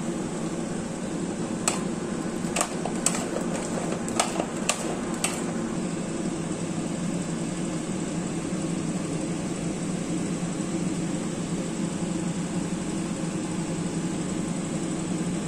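Steady mechanical hum of ventilation-type machinery, with six short sharp clicks between about two and five seconds in.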